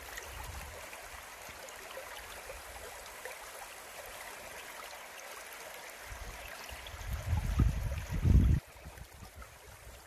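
Shallow river running over stones, a steady rushing and babbling of water. A louder low rumbling comes in for a second or so near the end, then stops abruptly.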